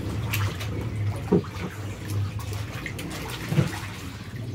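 Water sloshing and splashing in an inflatable pool as children move about in it, with two louder splashes about a second and a half and three and a half seconds in.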